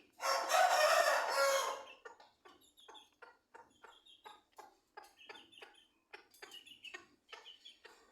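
Chickens calling: one loud, drawn-out call lasting almost two seconds, followed by a steady run of short clucks at about three a second.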